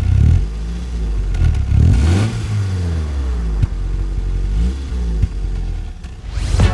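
Exhaust of a Renault 21 Nevada's 2.2-litre fuel-injected four-cylinder engine, heard close at the tailpipe, revved in several short blips that rise and fall back toward idle, the biggest at the start and about two seconds in.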